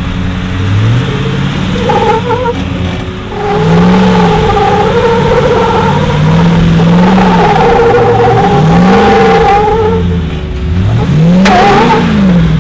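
Off-road 4x4's engine revving up and dropping back again and again, about four times, over a steady wavering whine. A sharp knock with a short squeal comes near the end.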